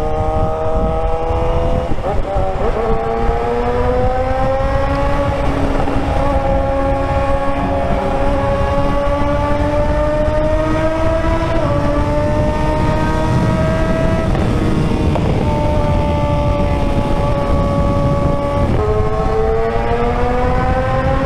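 Suzuki GSX-R 600's inline-four engine running at speed, its pitch climbing slowly and dipping suddenly about four times, over steady wind and road noise.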